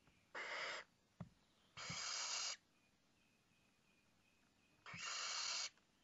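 Barn owl chicks giving three hoarse hissing calls, each under a second: the snoring food-begging call of owlets waiting to be fed. A short knock sounds between the first two calls.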